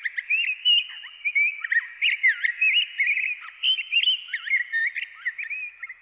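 A flock of birds chirping and chattering together: many short, overlapping rising and falling whistled notes, fading out near the end.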